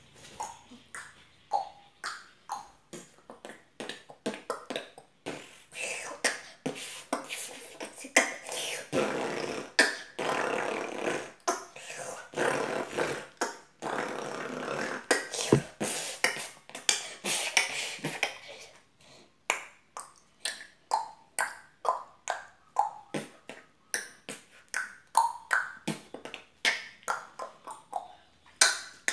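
Vocal beatboxing: a run of rhythmic mouth-made drum sounds with sharp clicks, turning busier and more continuous in the middle, then back to steady evenly spaced strokes.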